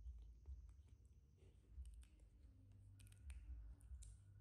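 Faint scattered clicks and crackles from a baby monkey biting and handling longan fruit at its mouth, with a bunch of them near the end, over a low background hum.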